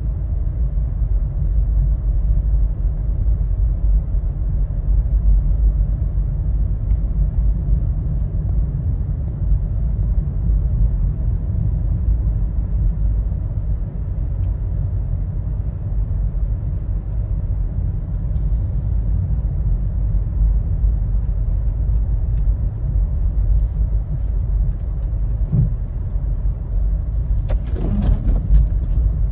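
Toyota Prius driving, heard from inside the cabin: a steady low rumble of road and tyre noise with no changes in pitch. There is a brief knock near the end.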